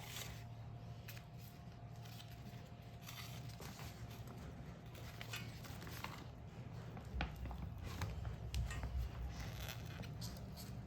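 Small handling noises: scattered rustles, scrapes and light clicks, with a few soft low thumps about two-thirds of the way through, over a faint steady hum.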